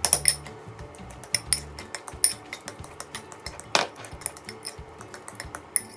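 A metal fork mashing banana in a ceramic bowl, its tines clinking and scraping against the bowl in quick, irregular taps.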